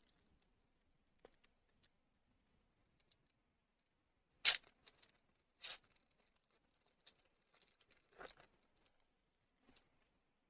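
A Panini Illusions trading card pack being torn open. Two sharp rips of the wrapper about a second apart near the middle, then fainter rustling and crinkling.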